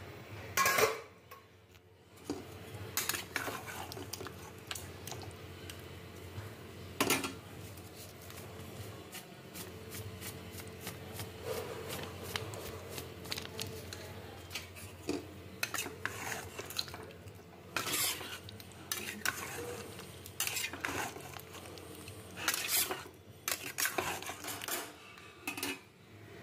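A cooking utensil clinking and scraping against a pan as potato curry is stirred: irregular knocks and scrapes, some much louder than others.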